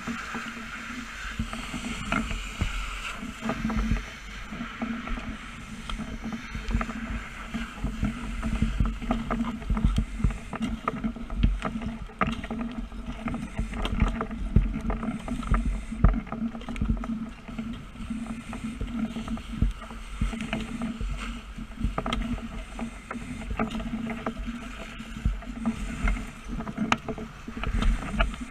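A steady low engine drone under a hiss, with frequent irregular crackles and knocks throughout.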